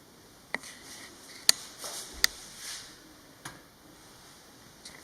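A few sharp, isolated clicks and light knocks in a small room, the loudest about a second and a half in and again just after two seconds.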